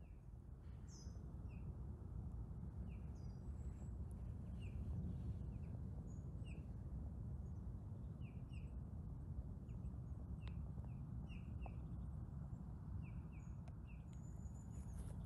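Small forest birds giving short, high chirps, many of them scattered through, over a steady low background rumble.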